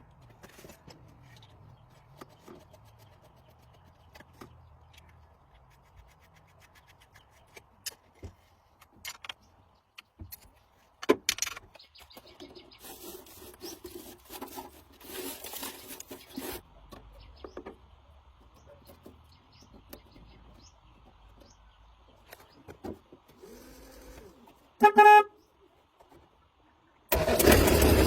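Faint scattered clicks and scrapes of work on the truck, then one short horn toot about three-quarters of the way through. Near the end the restored truck's diesel engine starts running loudly and steadily.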